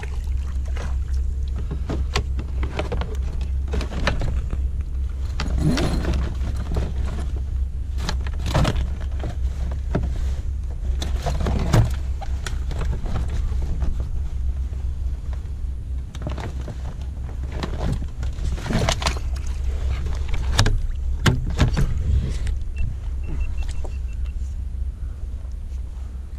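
Knocks, scrapes and rustles of hands and gear on a plastic fishing kayak as a caught fish is stowed in a bag in the hull hatch, over a steady low rumble.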